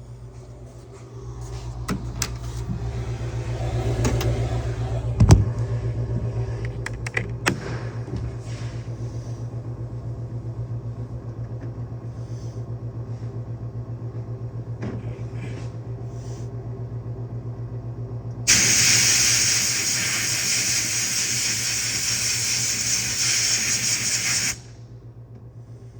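A steady motor hum with scattered clicks and knocks of handling, then a loud, steady hiss of pressurised spray, starting abruptly about 18 seconds in and cutting off suddenly after about six seconds.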